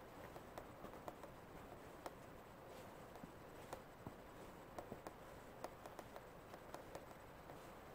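Near silence: a faint steady hiss with scattered light clicks, a few each second.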